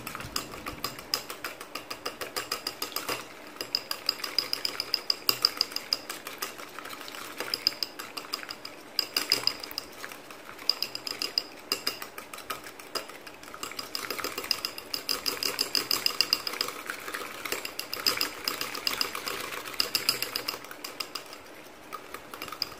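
Small wire whisk beating an egg by hand in a ceramic bowl: rapid, even clicking of the wires against the bowl, coming in louder and softer spells. The egg is being beaten until frothy.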